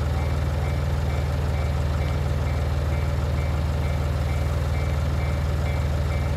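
Steady low engine hum with a faint high beep repeating about twice a second.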